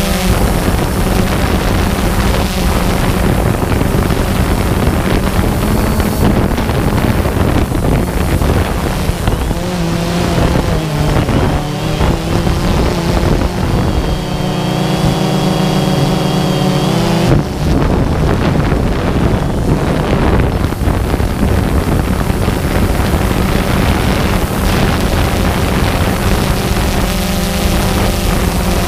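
Multirotor drone's motors and propellers humming steadily, with wind buffeting the onboard microphone. Higher whining tones shift and come and go for a few seconds just past the middle.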